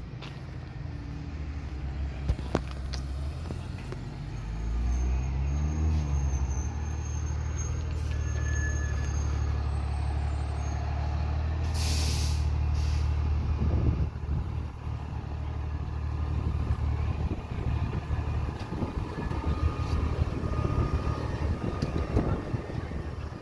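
Heavy truck engine running, rising in pitch about five seconds in and then holding steady, with a sharp hiss of air brakes about halfway through that lasts about a second.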